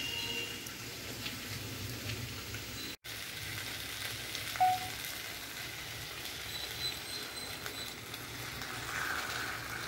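Black chickpeas with onion and tomato sizzling in oil in a pan, a steady low hiss that briefly cuts out about three seconds in.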